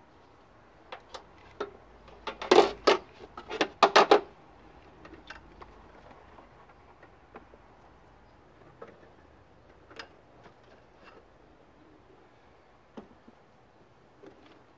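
Parts being handled under the hood of a switched-off engine: a quick cluster of sharp clicks and rattles about two to four seconds in, then scattered light ticks.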